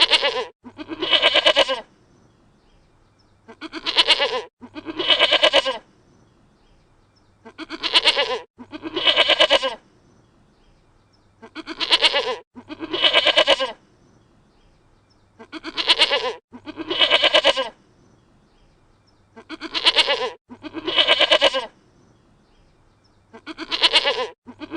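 Dutch goat bleating: a short bleat followed at once by a longer one, the same pair repeating about every four seconds.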